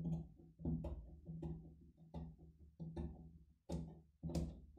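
Large steel tailor's shears cutting through thick woollen suit fabric: a run of snips, about one every 0.7 seconds, each fading quickly. The shears are louder than usual because the warm cloth is thick and does not cut easily.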